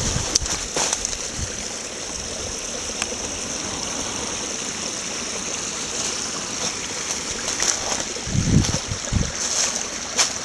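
Small snowmelt stream trickling and babbling steadily in a shallow channel, with a few low thumps near the end.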